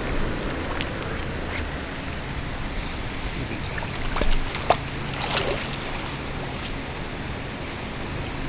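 Steady rush of moving water, with a few short splashes or knocks around the middle.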